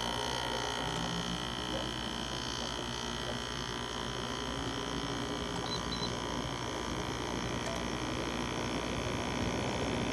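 LG LW6017R 6,000 BTU window air conditioner running steadily, a continuous hum with a high steady tone. Two short faint high beeps about six seconds in.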